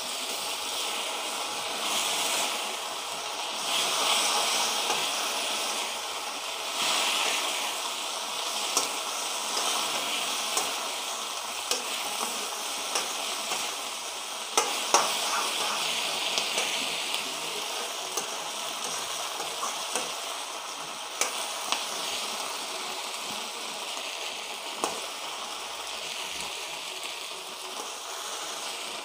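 Chilli chicken sizzling in a wok as a metal spatula stirs and tosses it in its freshly added arrowroot-slurry sauce, a steady frying hiss with scattered sharp clicks of the spatula against the pan.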